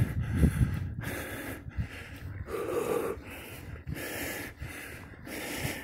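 A cyclist's heavy, rhythmic breathing: quick breaths in and out, about one and a half a second, from the effort of pedalling uphill.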